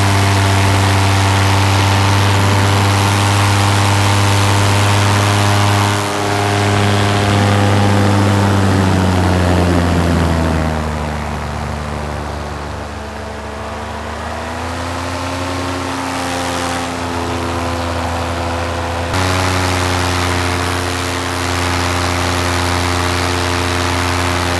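Paramotor engine and propeller running steadily in flight, then throttled back about ten seconds in so the pitch drops and it quietens, before climbing again and stepping up sharply to full power about three-quarters through.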